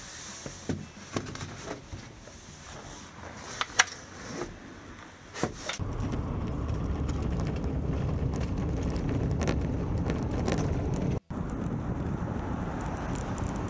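A cardboard pizza box is handled and slid into a velomobile's nose, with several sharp knocks and clicks. From about six seconds in, a DF XL velomobile rolls along the road with a steady low rumble of tyre and drivetrain noise inside its carbon-fibre shell, broken once by a brief cut-out near the end.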